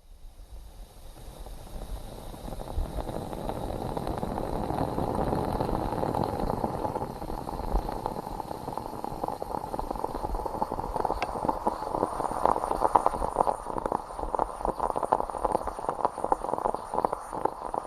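Moka pot gurgling and sputtering as the brewed coffee rises into the upper chamber. The sound fades in at the start and turns to denser crackling pops in the second half.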